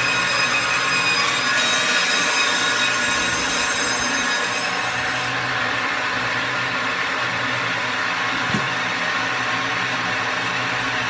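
Band saw cutting through a frozen grouper: a steady machine whir with a harsher hiss while the blade is in the fish. About five seconds in, the cut finishes and the saw runs on without load. There is a single knock a few seconds later.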